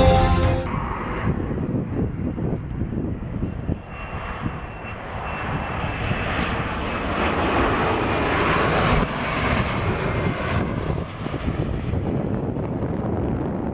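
Embraer ERJ-145XR regional jet on final approach, its two rear-mounted Rolls-Royce AE3007 turbofans running with a steady rushing noise and a faint high whine. The sound grows louder to a peak about nine seconds in as the jet passes close by, then eases off a little.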